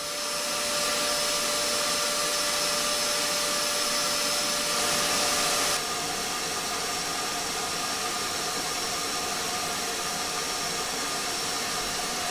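Vacuum cleaner running steadily, air rushing into its hose nozzle over a steady motor whine; the tone shifts slightly about six seconds in.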